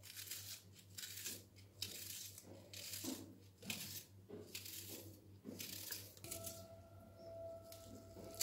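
Kitchen knife slicing onions thinly on a cutting board: faint, short, sharp cuts every half-second to second.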